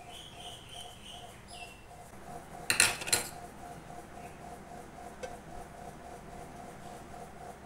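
Stainless-steel bowl and spoon clanking: a brief clatter of a few sharp metallic knocks about three seconds in.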